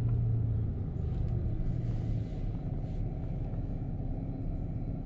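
Vehicle cabin noise while driving slowly: a low engine and road rumble, with a steady engine hum that drops away about two seconds in.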